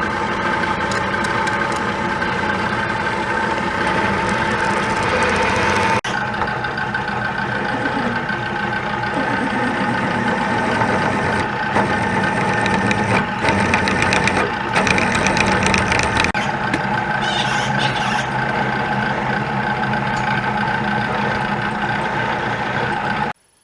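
Milling machine running steadily while drilling a 59/64 in hole for a 1 inch-12 tap, a continuous mechanical whine with several steady tones. The sound jumps once, about six seconds in, as the sped-up footage cuts.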